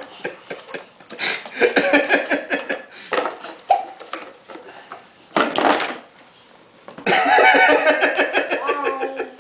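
A young child laughing and squealing in choppy bursts, loudest over the last couple of seconds, with a short burst of noise midway.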